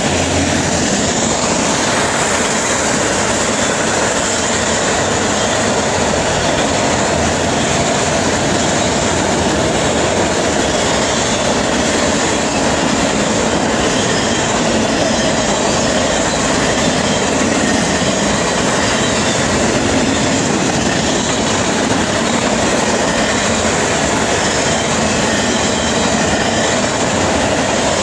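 Freight cars of a CSX train rolling past close by: a loud, steady noise of steel wheels running on the rails.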